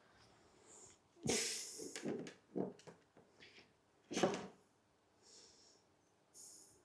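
A few short knocks and scrapes of small parts being handled, with faint rustling between them; the longest, a brief scrape, comes a little over a second in, and two sharper knocks follow about a second and a half apart.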